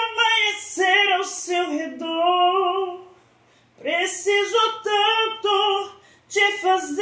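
A man singing unaccompanied in a high voice into a microphone: long, wavering sung phrases with a brief break a little past three seconds in.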